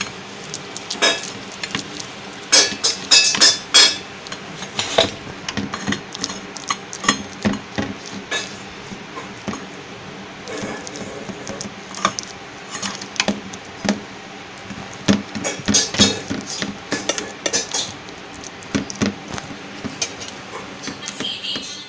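Silicone spatula pressing and spreading coconut burfi mixture in a stainless steel tray. It makes irregular knocks, clinks and scrapes against the metal, coming in clusters.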